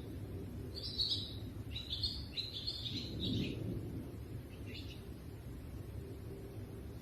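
Small birds chirping in short bursts, several calls in quick succession, over a low rumble.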